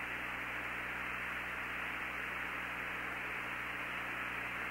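Steady hiss of the Apollo 17 air-to-ground radio channel, cut off above the upper mids, with a faint low hum under it.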